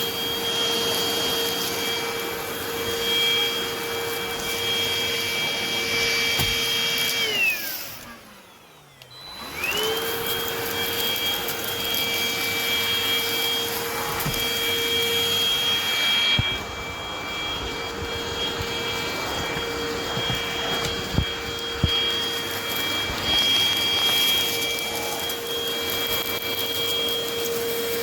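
Eureka RapidClean Pro cordless stick vacuum running with a steady whine. About seven seconds in, its motor spins down and the pitch falls away almost to silence. About two seconds later it spins back up to full speed. A few short knocks come later on.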